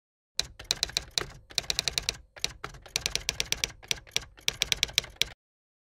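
Typewriter keystroke sound effect: a run of quick, uneven clacks, several a second. It starts about half a second in and stops about half a second before the end.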